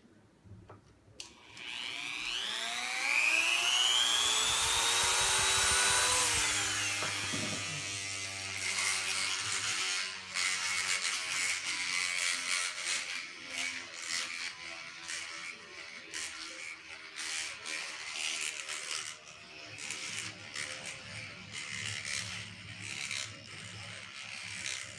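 Dremel rotary tool driving the aluminum rotor of a handmade gyroscope up to speed, a whine rising in pitch for about five seconds, then dropping away as the tool is pulled off. The rotor keeps spinning with a fainter hum while the oak gimbal frame is handled, with many small clicks and knocks.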